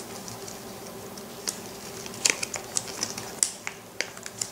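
Paper and foil-plastic toy packaging handled and unwrapped by hand, giving scattered small crinkles and ticks that start about a second and a half in and come more often near the end.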